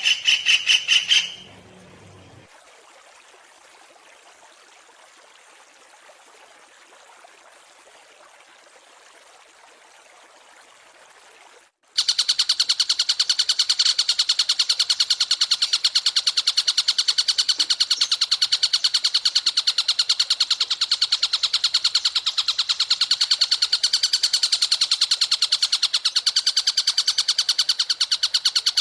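Songbird tutor recording: a fast, very even high-pitched trill of rapid chirps that starts suddenly about twelve seconds in, after a stretch of faint hiss. A similar rapid chirping cuts off about a second in.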